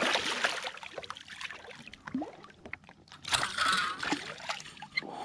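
Water splashing and sloshing as a hooked smallmouth bass fights on the line near the boat, with scattered clicks and a louder splashy stretch a little past halfway.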